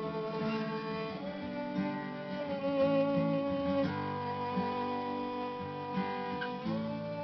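Violin playing long bowed notes that change pitch every second or few, over acoustic guitar accompaniment.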